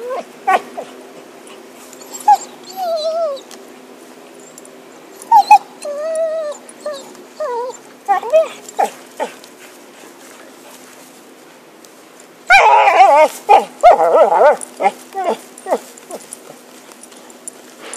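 Cocker spaniel whining and whimpering in short, wavering, pitched calls, with a louder, longer run of whining about two thirds of the way through.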